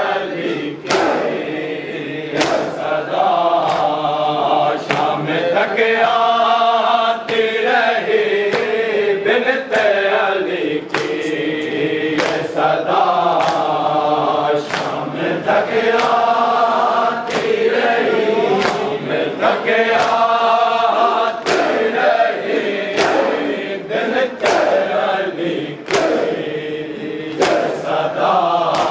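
Mourners chanting a noha in chorus, with sharp rhythmic chest-beating (matam) about once a second.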